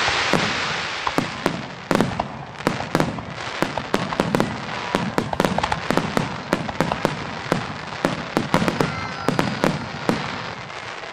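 Aerial fireworks barrage: a rapid run of sharp shell bursts, several bangs a second over a continuous crackle, thinning out and fading near the end.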